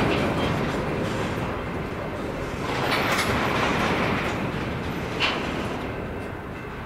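Empty covered hopper cars of a grain train rolling past on jointed rail: a steady rumble of wheels on track that swells about three seconds in, with a single sharp click a little after five seconds.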